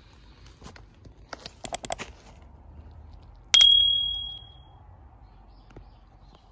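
Subscribe-button sound effect: a quick run of clicks, then a single bright bell ding, the loudest sound, that rings out for about a second.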